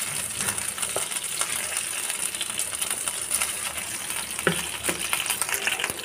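Flour-coated chicken pieces sizzling in hot oil in a nonstick frying pan, with a few light knocks of the spatula against the pan as the fried pieces are lifted out.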